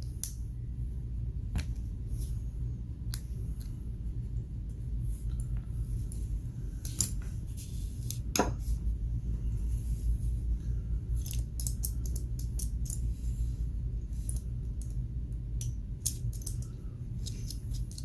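Scattered small metallic clicks and clinks as a large steel watch and a two-prong case back opener are handled, over a steady low hum.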